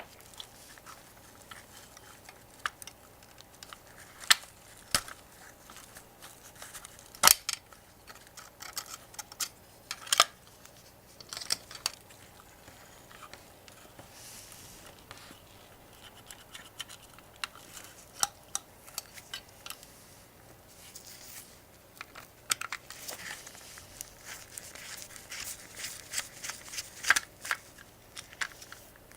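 Hand work on small metal parts: irregular sharp clicks and taps with light scratching and rustling between them, the taps coming thicker near the end.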